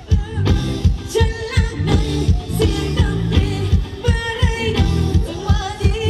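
Live band playing Thai ramwong dance music, a singer over a steady drum beat.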